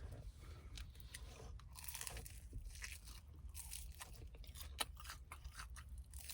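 Crispy Korean fried chicken being bitten and chewed, with irregular crisp crunches and one sharper crack near the end.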